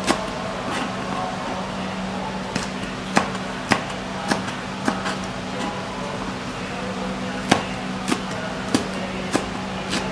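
Kitchen knife slicing green chillies on a plastic cutting board: sharp knocks of the blade hitting the board, about one every half second, with a pause of a couple of seconds midway, over a steady low hum.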